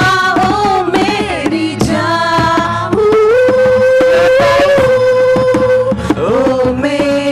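A singer and several acoustic guitars strumming chords together in a live stage performance, heard through a PA. About three seconds in, the voice holds one long steady note for roughly three seconds before moving on.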